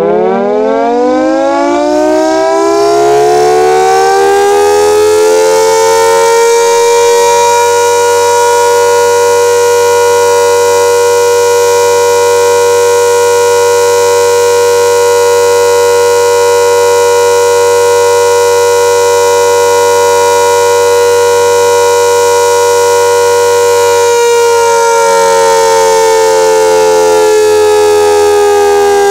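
Castle Castings air raid siren winding up over about six seconds to a loud, steady wail of several tones together. It holds that pitch, then begins to wind down, falling in pitch, about 24 seconds in.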